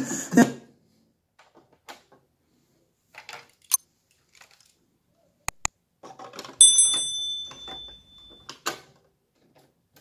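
Hitachi TRK-8240RM boombox being handled: the radio cuts off just after the start, then small plastic clicks from the controls. About five and a half seconds in come two sharp clicks as the cassette door is opened. A cassette is then fitted in with a clatter and a brief metallic ring, and the door clicks shut near the end.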